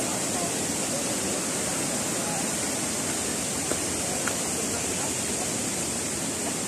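Waterfall rushing with a steady hiss of falling water. Two faint clicks come about halfway through.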